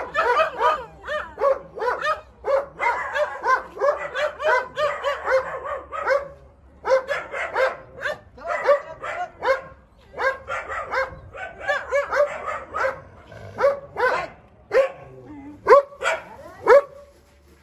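Dogs barking in runs of short, sharp barks, about two or three a second, with brief breaks and sparser barks near the end.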